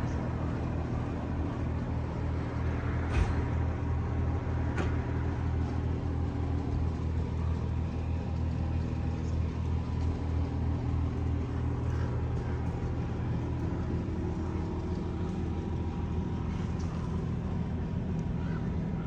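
A steady low mechanical rumble, with a couple of sharp clicks about three and five seconds in.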